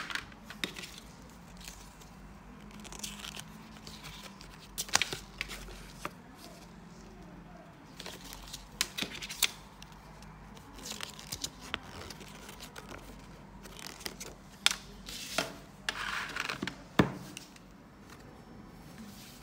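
Paper cards and plastic packaging being handled: intermittent rustling and crinkling, with scattered small clicks and taps.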